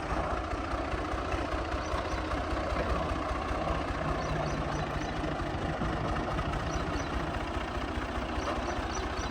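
Massey Ferguson 385 tractor's four-cylinder diesel engine running steadily under load while belt-driving a mustard thresher, its fast even firing pulse under the constant noise of the threshing machinery.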